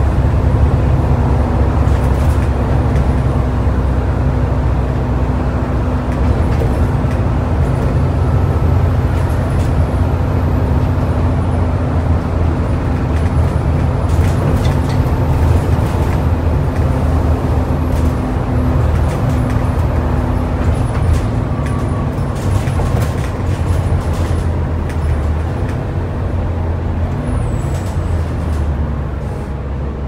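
Volvo B7TL double-decker bus's six-cylinder diesel engine running steadily under way, with rattles from the body. Near the end the engine note falls as the bus slows.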